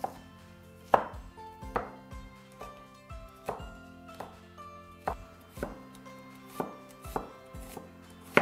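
A broad-bladed kitchen knife chopping red bell pepper, pepperoncini and red onion on a plastic cutting board: sharp knocks of the blade on the board, irregular, one or two a second, the loudest about a second in and near the end. Background music runs underneath.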